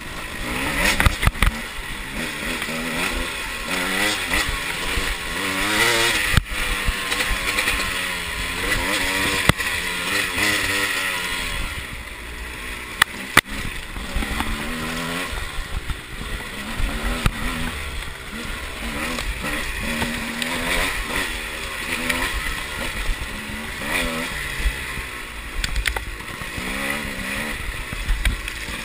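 300cc two-stroke enduro motorcycle engine revving up and down again and again as the throttle is worked along a bumpy trail. A few sharp knocks from the bike hitting bumps stand out above it.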